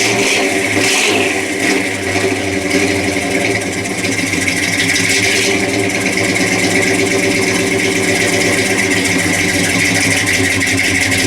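1963 Chevrolet C30's 327 V8 running through dual exhaust with Flowmaster mufflers, a little uneven in the first few seconds and then idling steadily.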